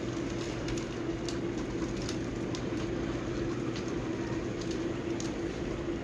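A steady mechanical hum on one pitch over a rushing background noise, with a few faint scattered ticks.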